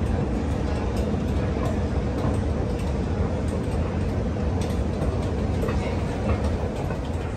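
Underground metro station concourse ambience: a steady low rumble with echoing crowd chatter and occasional faint clicks.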